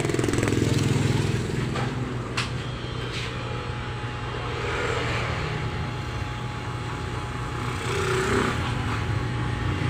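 Electric hair clippers buzzing steadily as they cut a boy's short hair, with a couple of sharp clicks a few seconds in. Motor traffic passes in the background.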